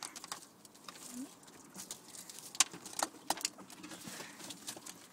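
Ferrets tugging and chewing at a raw chicken carcass: irregular sharp clicks and light rustling, with the loudest click about two and a half seconds in.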